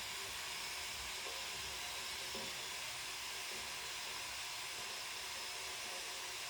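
Kettle heating up toward the boil, giving a steady hiss that does not change.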